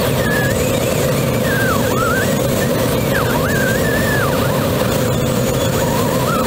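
Steady rushing airflow inside the cockpit of a Grob G103 Twin Astir glider in flight, with a thin tone over it that keeps gliding up and down in pitch.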